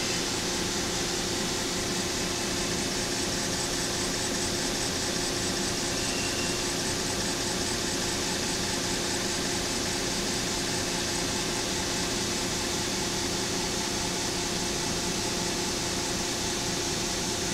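Indelac LA7B-12 multi-turn electric actuator running steadily, its motor and gearing giving an even hum with a constant tone as it turns the valve stem to stroke the valve open.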